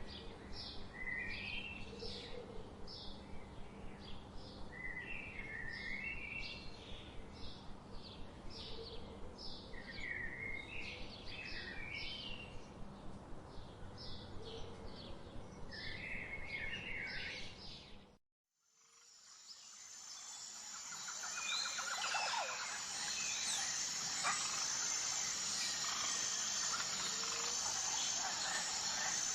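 Wild birds singing: a bird repeats quick high notes, broken every few seconds by a short warbled phrase. About 18 seconds in, it cuts to silence for a moment. A second recording fades in, with many birds calling over a steady high-pitched trill.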